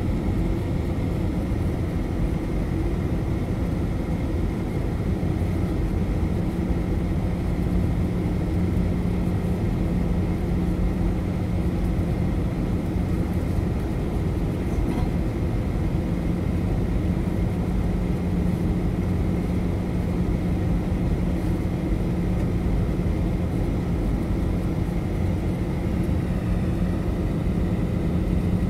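Steady cabin noise of a Boeing 737-800 on its descent: the drone of the engines and airflow, with a constant low hum that grows stronger a few seconds in and a faint high whine above it.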